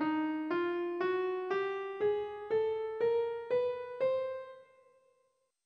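Piano notes playing an ascending scale, one note about every half second and each a step higher. The scale is Chromatic Undecamode 8 (scale 4079), an eleven-note scale with every semitone from middle C to the C above except E. This stretch runs from E-flat up to the top C, which rings on and fades out over about a second and a half.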